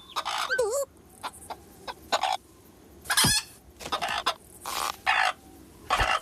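Cartoon vocal sound effects: a run of short, squawky, clucking cries, about a dozen clipped bursts, some with a wobbling pitch, the loudest about three seconds in.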